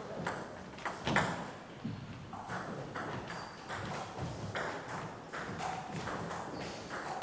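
Table tennis balls clicking: irregular sharp knocks of the ball bouncing on the table and floor and being tapped with bats, ringing a little in the hall.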